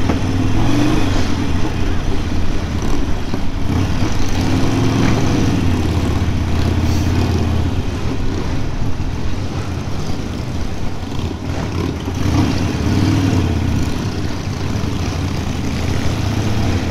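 Harley-Davidson Sportster V-twin engine running while the bike is ridden, its note rising and falling a few times as the throttle changes.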